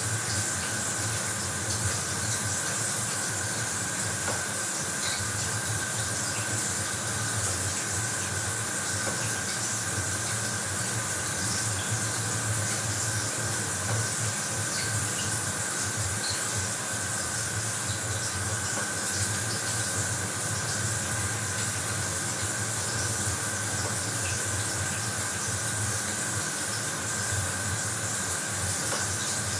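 Bathroom shower running: a steady spray of water hissing down, unbroken, with a faint steady tone under it.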